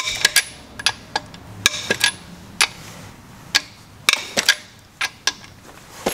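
Ratchet and socket clicking and clinking as a crankshaft main-cap bolt is worked loose, in a dozen or so irregular sharp metal clicks. The bolt gives no clean snap as it breaks loose, which the mechanic takes as a sign it may be stretched from the block overheating.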